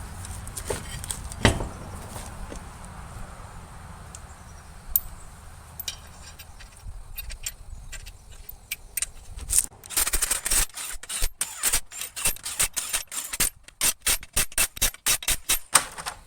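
Hand ratchet wrench clicking rapidly as it runs bolts or nuts down, in a fast series of sharp metallic clicks that starts about ten seconds in. Before it there is a low steady hum and a few scattered knocks.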